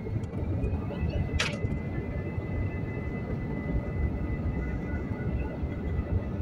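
Jet airliner's engines heard from inside the cabin as the plane rolls along the runway before take-off: a steady low rumble with a thin high whine over it. A brief click about a second and a half in.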